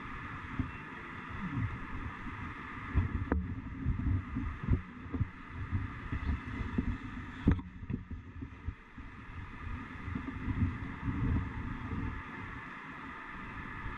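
Wind buffeting on a bike-mounted camera's microphone, heard as an uneven low rumble, over a steady hiss of street traffic. Two sharp clicks, about three seconds in and again past the middle.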